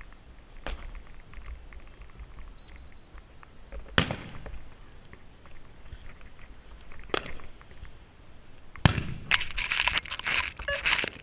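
Fireworks going off: four separate bangs, the loudest about four seconds in with an echoing tail, then a dense spell of crackling for the last two seconds.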